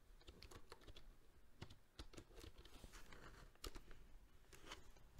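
Faint computer keyboard typing: a few irregular keystrokes as a short command is typed.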